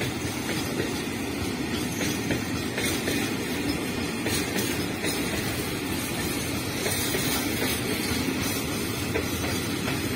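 A State Railway of Thailand freight train of tank wagons and container wagons rolling steadily past close by: a continuous rumble of steel wheels on rail with scattered clicks.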